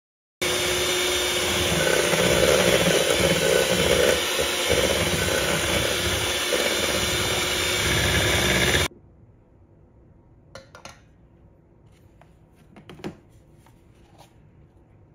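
Black+Decker electric hand mixer running steadily, its beaters whirring through a crumbly mixture in a stainless steel bowl. It starts about half a second in and cuts off suddenly about nine seconds in, followed by a few faint taps.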